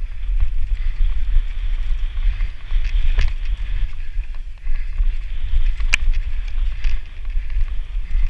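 Wind rumbling on a helmet-mounted camera as a downhill mountain bike runs down a rocky dirt trail, with the rattle of the bike and tyres over rough ground. There is a knock about three seconds in and a sharper one about six seconds in.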